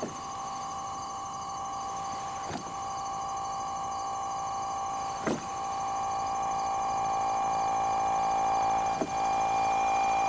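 Battery-powered electronic synthesizer holding a drone of several steady tones, with a fast warble in the upper part, slowly growing louder. Four brief clicks or glitches break through it.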